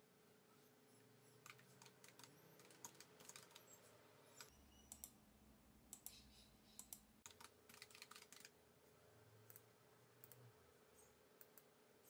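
Faint typing on a computer keyboard: irregular bursts of key clicks, over a faint steady hum.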